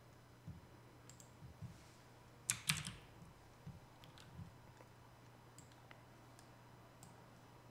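Sparse clicks of a computer keyboard and mouse, with a small cluster of louder clacks about two and a half seconds in, over a faint steady low hum.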